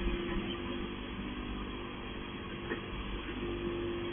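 Touchless automatic car wash machinery running: a steady mechanical hum with a constant tone over a low rumble, with one small click a little past the middle.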